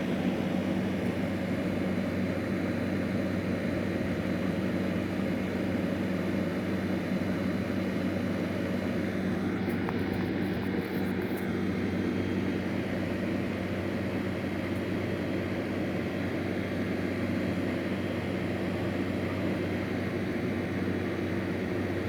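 Steady low droning hum and rumble that holds an even level throughout, with a short patch of faint clicking crackle about ten seconds in.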